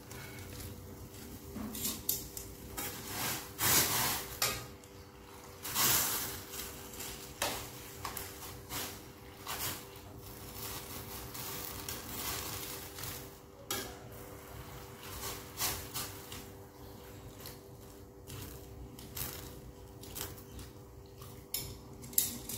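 Metal tongs clinking and scraping against a steel wok while leaves are stirred and turned in boiling water, in irregular knocks, loudest about four and six seconds in, over a faint steady hum.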